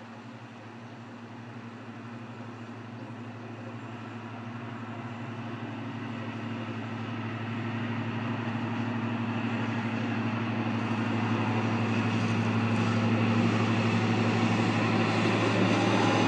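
Class 55 Deltic locomotive D9009 hauling a passenger train, its twin Napier Deltic two-stroke diesel engines working with a steady low engine note and getting steadily louder as it approaches.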